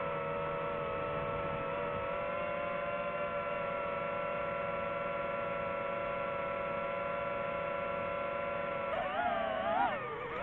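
DJI FPV drone's motors and propellers whining steadily in a hover. It is flying on two propellers, with a third hanging from a broken leg. About nine seconds in, the pitch starts wavering up and down as the motors change speed and the drone tilts into a turn.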